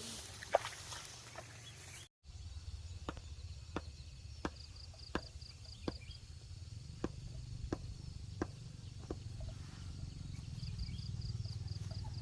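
A series of sharp knocks or chops, roughly one to two a second and irregularly spaced, over a steady low rumble, with a faint fast high trill heard twice.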